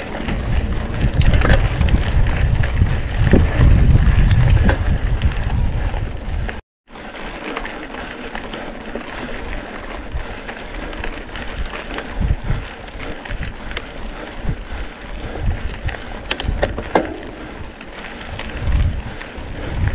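Mountain bike rolling over a gravel dirt track: tyre crunch with rattles and knocks from the bike, and heavy wind rumble on the microphone for the first six seconds or so. The sound drops out completely for a moment about seven seconds in, then the lighter rolling noise carries on.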